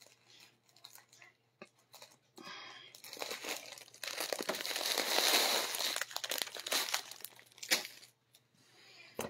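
Clear plastic zip-lock bag crinkling and rustling as folded clothing is pulled out of it, loudest in the middle few seconds, with a few faint taps before it.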